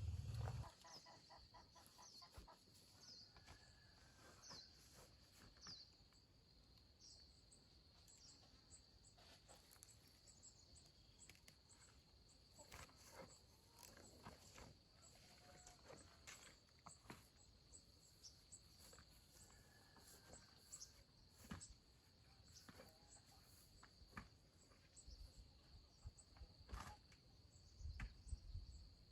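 Faint outdoor ambience of insects droning steadily at a high pitch, with a bird chirping several times in the first few seconds and occasional light clicks and rustles.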